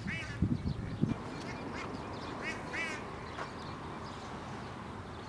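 Ducks quacking: one short call at the start and three quick ones about two and a half seconds in, over a steady outdoor hiss, with a few soft thumps in the first second.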